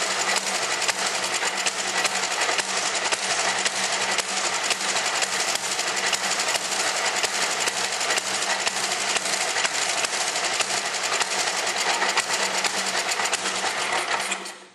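Tecumseh small engine on a Toro snowblower running fast and steady, then dying out near the end.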